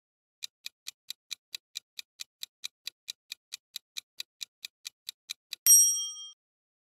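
Quiz countdown timer sound effect: rapid clock-like ticking, about five ticks a second, ending in one bright bell ding near the end as the time runs out.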